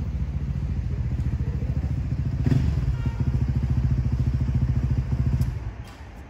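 An engine running close by with a rapid low pulsing, which stops sharply about five and a half seconds in.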